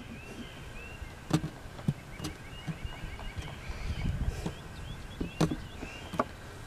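Hands working super glue into a crack in a guitar's spruce top, giving a few sharp clicks, about four in all. Birds chirp faintly throughout.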